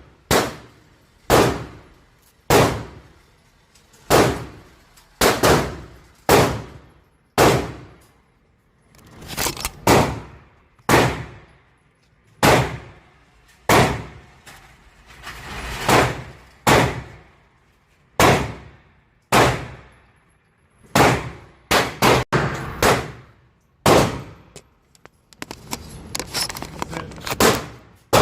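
Semi-automatic 12-gauge shotgun fired in a long string of about twenty shots, mostly a second or so apart, with a quick run of four shots about three-quarters of the way through. Each shot rings out and fades over a fraction of a second.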